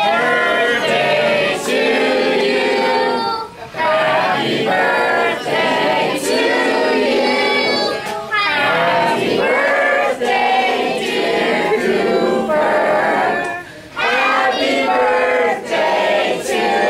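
A group of voices singing together, with two short breaks between phrases.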